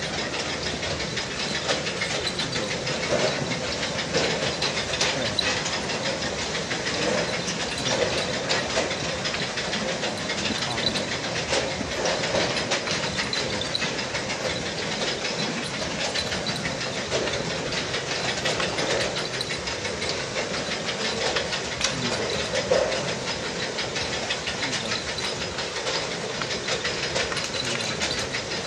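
A steady hiss with light crackling throughout, and faint voices of onlookers now and then.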